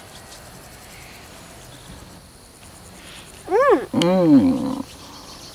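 A quiet stretch, then, about three and a half seconds in, a small child and a man make short wordless vocal sounds that rise and fall in pitch. The child's higher voice comes first and the man's lower voice overlaps it.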